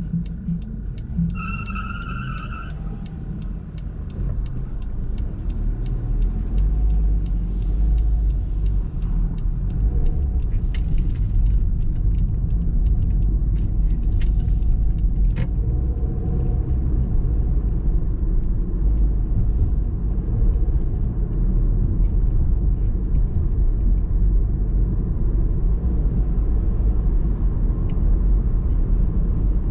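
Car driving, with a steady low engine and road rumble that grows louder about four seconds in as the car picks up speed. A turn signal ticks at an even pace for the first several seconds and then stops. A single short beep sounds about a second and a half in.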